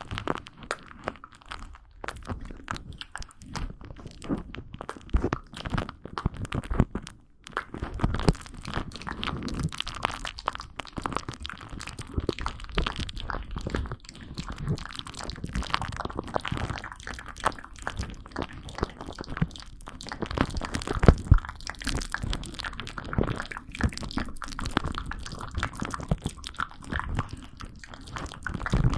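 Close-miked ASMR crunching and crackling: a dense, irregular run of small crisp clicks.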